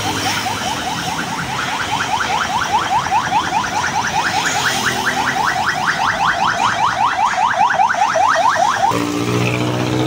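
Electronic alarm sounding a rapid run of rising chirps, about five a second, growing louder and then cutting off suddenly near the end, over street traffic noise.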